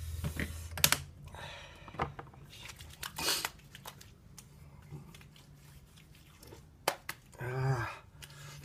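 Witch hazel splashed from a bottle into a cupped palm, then wet hands rubbed together and patted onto a freshly shaved face: a run of sharp wet smacks and short rustles. A brief voiced exclamation about seven and a half seconds in.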